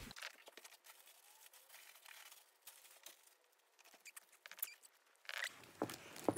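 Quiet room with faint, scattered small clicks and rustles; a few louder taps come near the end.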